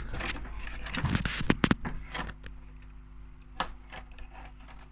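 Clicks and knocks of hands handling an old reel-to-reel tape recorder and its controls, over a steady low electrical hum.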